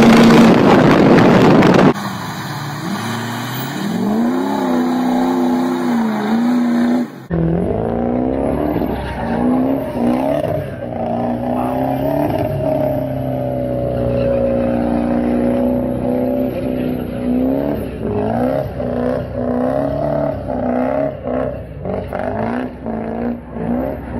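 Ford 6.0 Power Stroke turbo-diesel V8 engines revving hard in a string of clips: a loud full-throttle run, then from about two seconds in repeated revs rising and falling, then from about seven seconds in a truck held at high revs through a burnout, the engine pitch wavering as the tyres spin, with a thin high whine above it.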